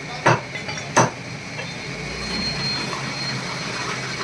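Two sharp knocks about a second apart near the start, a butcher's cleaver striking a wooden log chopping block, followed by steady background noise with a constant high hum.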